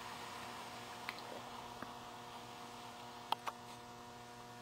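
Quiet room tone with a steady electrical hum. A few faint clicks, then two sharper clicks close together a little after three seconds in.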